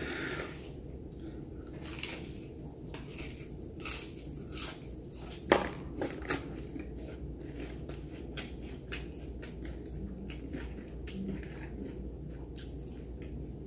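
Hands rummaging in a cardboard takeout chicken box and pulling out crispy fried chicken: a run of short crackles and clicks, the sharpest about five and a half seconds in.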